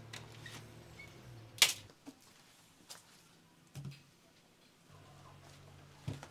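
A door shuts with a sharp latch click about a second and a half in. Later come a few soft knocks as a wicker basket is set down on a table.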